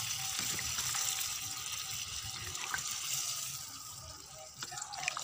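Mutton curry in a kadai hissing and bubbling just after water has been poured in, the hiss dying down after about three and a half seconds. A few short metal scrapes of the spatula against the pan near the end.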